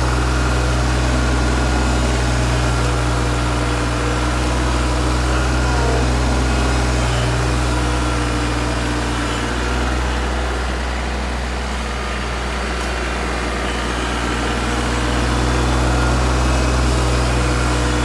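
Kubota L3130 compact tractor's diesel engine running steadily as it drives over and packs a pile of chopped corn silage, dipping slightly about halfway through.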